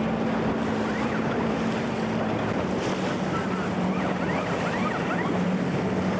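Wind noise on a camcorder microphone over a steady low hum and a wash of water noise. A few faint, short chirping sounds come in about two-thirds of the way through.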